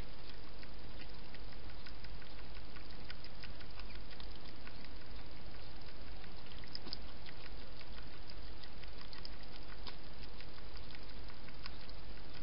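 A wild hedgehog with its head down in a dish, making many small irregular clicking mouth sounds as it feeds. Behind it is a steady hiss and a low hum.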